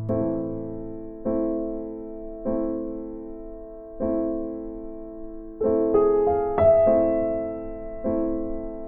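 Background piano music: slow, soft chords struck about once every second or so, each ringing out and fading before the next.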